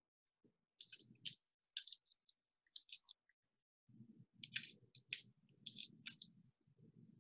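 Small pieces of fusing glass clicking against each other and against a glass sheet as they are picked up and set down, in scattered light clicks. A low rustle of handling joins in from about four seconds in.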